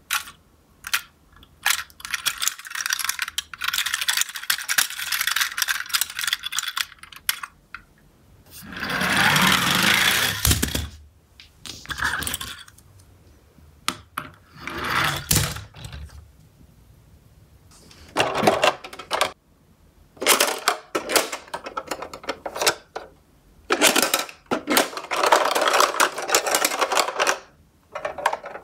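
Toy garbage trucks being handled: clusters of clicks, taps and rattles as they knock against each other, the cardboard box and a wooden board. About nine seconds in there is a steadier noise lasting about two seconds.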